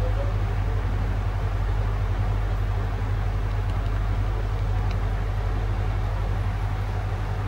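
Steady low hum over a constant rushing noise, unchanging throughout.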